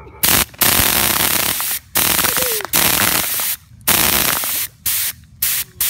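Homemade gravity-fed, air-agitated full-auto BB gun firing in five bursts: the first two last about a second and a half each and the later ones get shorter, with brief gaps between them.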